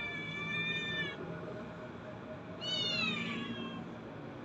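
Domestic cat meowing twice: a long drawn-out meow that ends about a second in, then a shorter meow a couple of seconds later that falls in pitch.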